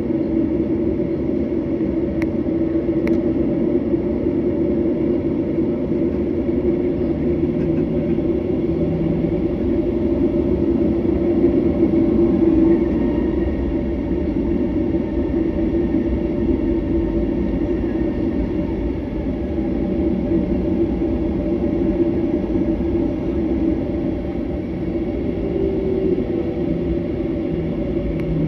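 Jet airliner taxiing, heard from inside the passenger cabin: a steady engine hum and low rumble that holds even throughout.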